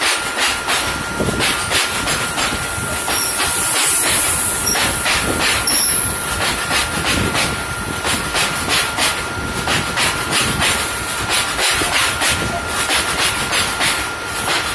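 Open-top steel freight wagons of a long goods train rolling past close by: a continuous clatter of wheels knocking over the rail joints, with a thin steady high ringing tone held throughout.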